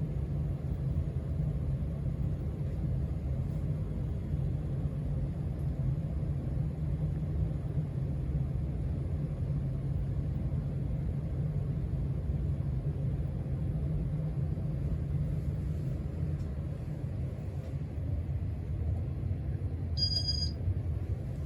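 Casablanca Stealth ceiling fan running steadily at its fourth of six speeds, a low, even hum and rumble of motor and moving air. A short high beep sounds near the end.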